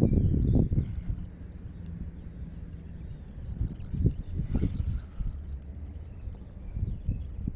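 Spinning reel's drag giving line to a hooked fish that is pulling hard: a high buzz in stretches that breaks into a quick run of clicks near the end.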